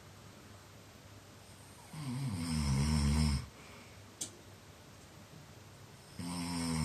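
A sleeping man snoring: one long snore about two seconds in, then quiet breathing, then the next snore starting near the end. A single short click sounds in the gap between them.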